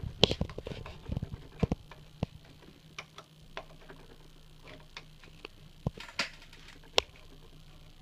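Sharp metallic clicks and knocks of hard drive magnets and their steel base plates being pushed by hand in a bench vise. A quick run of clicks over the first two seconds or so, then scattered single clicks, the sharpest near the end.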